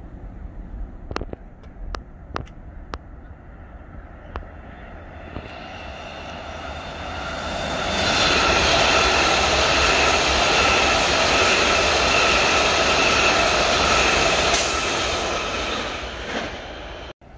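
Washington Metro train approaching and passing close by at speed: the rumble of wheels on rail swells to a loud, steady run with several steady high whining tones over it, then fades and cuts off suddenly near the end.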